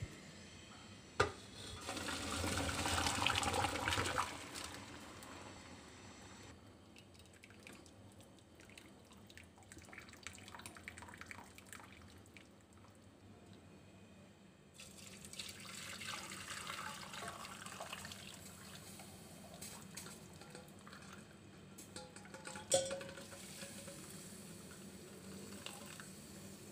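Chicken stock poured from a saucepan through a fine-mesh sieve into a pot: a splashing pour, loudest a couple of seconds in, then a second, weaker pour a little past the middle, with a sharp click before each pour.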